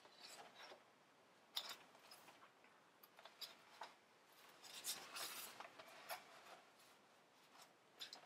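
Near silence broken by faint rustles and light taps of a picture book and a sheet of paper being handled, with a short cluster of rustling about five seconds in.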